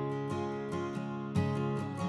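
Live country song in an instrumental gap with no singing: a guitar strumming chords, with several strokes ringing on.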